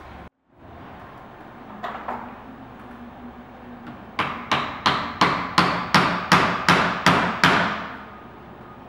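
Plastic-faced hammer tapping a wedge shim in between the door frame's top rail and the header: one light knock, then a run of about ten quick, ringing taps, roughly three a second, starting about four seconds in.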